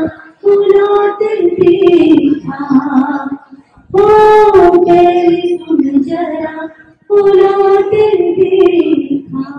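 A woman singing into a microphone over a PA, unaccompanied, in three long phrases with held, gliding notes and brief breaks between them.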